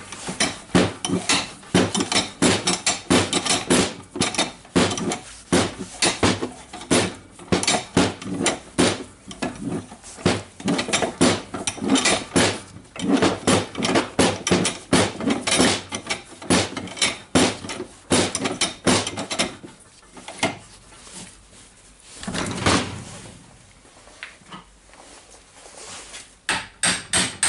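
Repeated metal-on-metal hammer blows, about two to three a second, driving a seized anvil out of the hammer mechanism of an impact wrench. The blows stop for a few seconds about three-quarters of the way through, then start again in a quick run near the end.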